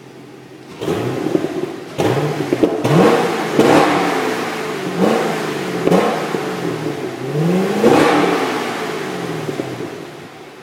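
Chevrolet Camaro 6.2-litre V8 exhaust being revved in a series of quick throttle blips, its pitch rising and falling each time, with a longer rev about eight seconds in before it settles back to idle.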